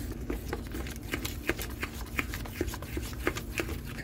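Metal spoon clinking and scraping against a stainless steel bowl while stirring thick rice-flour batter, an irregular run of quick taps, about three or four a second.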